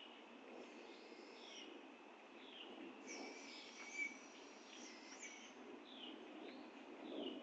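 Faint outdoor birdsong: a small bird repeats a short high down-slurred note about every second, while other birds add higher thin calls, over a thin steady high insect-like tone and low background rumble.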